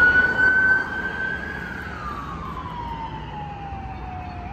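Emergency vehicle siren sounding a slow wail: the tone holds high, then glides steadily down over about three seconds. Traffic noise runs underneath and is loudest in the first second.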